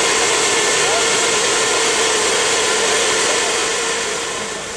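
Steady machine noise, a constant whir with a steady hum, as from a motor-driven blower or engine running close by. It eases off slightly near the end.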